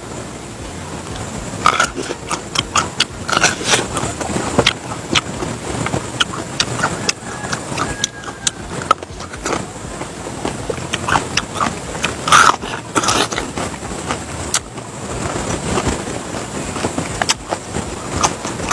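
Someone biting and chewing crisp raw vegetables, giving a continuous run of irregular crunches and crackles.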